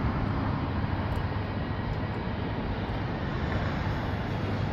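Steady rumble of distant jet aircraft engines at the airport, even in level with no distinct events.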